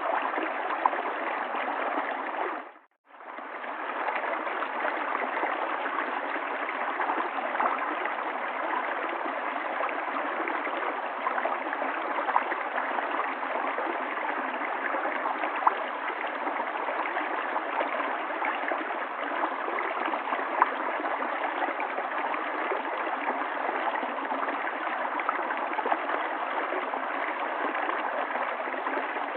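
River water flowing, a steady rushing of water. About three seconds in it fades out to near silence for a moment and fades back in.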